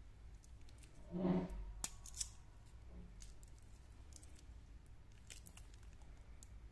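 Stainless steel watch bracelet links scraping briefly about a second in as the bracelet is flexed and unfolded, followed by two light metallic clicks.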